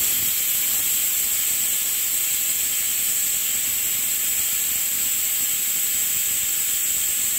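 Aluminium pressure cooker whistling: the whistle weight vents steam in a loud, steady high hiss, the sign that the cooker has come up to pressure.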